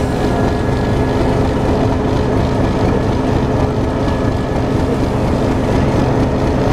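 English Electric 1600 class diesel-electric locomotive running steadily close by: an even, loud engine drone with a constant low hum.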